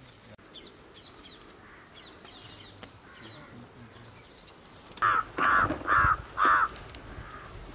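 A crow cawing four times in quick succession, loud and close, about five seconds in. Faint high chirps of small birds come before it.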